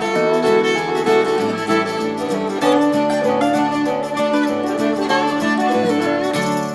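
Background music on string instruments: a fiddle with plucked guitar.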